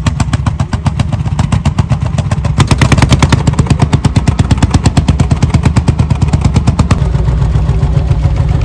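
Vintage single-cylinder hot-bulb tractor engine running under load while pulling a plough, its exhaust firing in sharp, evenly spaced beats about ten a second. About seven seconds in, the beat turns deeper and duller.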